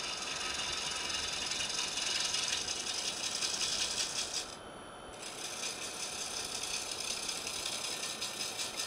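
A gouge cutting across the face of a laminated wooden platter spinning on a wood lathe: a steady rattling hiss of shavings coming off. It stops for about half a second near the middle as the tool lifts from the wood, then resumes.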